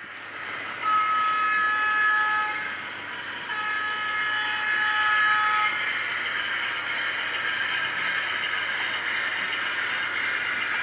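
H0-scale Roco model of a Dm3 electric locomotive sounding its horn twice through its loudspeaker, each blast a chord of steady tones lasting about two seconds. A steady hiss follows.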